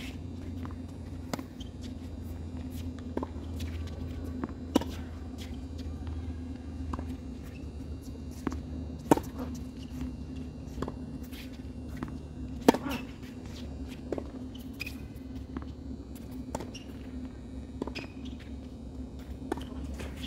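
Tennis rally on a hard court: sharp pops of the ball off the strings and its bounces on the court, one every second or two, with two louder hits about 9 and 13 seconds in. A steady low hum runs underneath.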